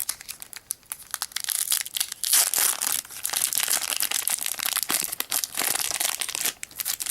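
A Magic: The Gathering booster pack's foil wrapper being torn open and handled, a dense, irregular crinkling and crackling.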